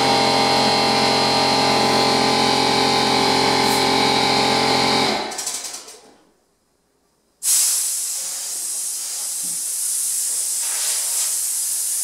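An air compressor runs steadily, then winds down and stops about five seconds in. After a short silence, a drywall texture hopper gun opens with a sudden loud hiss of air, spraying texture steadily.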